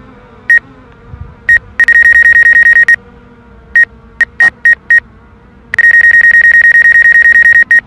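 DJI drone remote controller sounding warning beeps: single high-pitched beeps about once a second, broken by two runs of rapid beeping that last about two seconds each.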